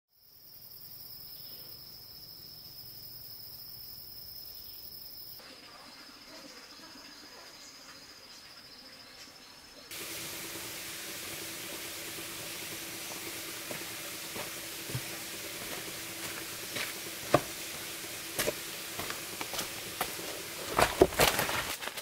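Rainforest insects trilling steadily at a high pitch. About ten seconds in this gives way to a denser insect hiss with a low steady hum underneath, and footsteps crunching on leaf litter come in, getting louder near the end.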